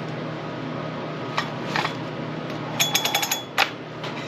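Small metal tools and parts clinking and tapping during hand work: a few single clicks, then a quick run of ringing metallic clinks about three seconds in. A steady low hum sits underneath.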